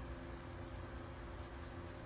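Steady low hum of a few held tones over faint background hiss, with no distinct events.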